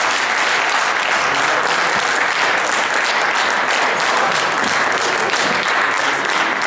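Crowd applauding, a steady sustained clapping that carries on without a break.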